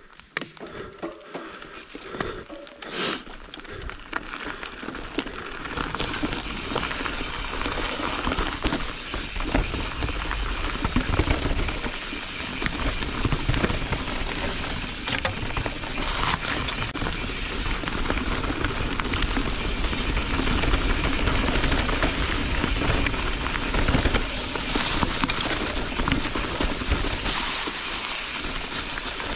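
Canyon Strive enduro mountain bike riding down a dirt forest trail: tyres rolling over dirt and dry leaves with the bike rattling. It starts with a few scattered clicks and knocks, and the rush of trail noise grows louder after about six seconds as the bike picks up speed.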